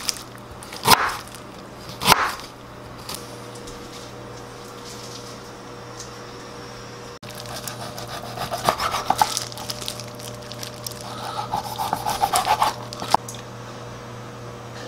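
Kitchen knife on a wooden cutting board: a few sharp chops through ginger in the first two seconds, then from about seven and a half seconds in a long run of quick sawing strokes and taps as the blade cuts raw pork back ribs apart. A steady low hum runs underneath.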